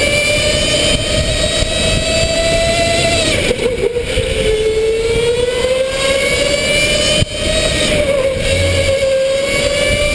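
Electric go-kart's motor whining over a steady rush of tyre and wind noise. The whine's pitch falls about three and a half seconds in, then climbs again as the kart picks up speed.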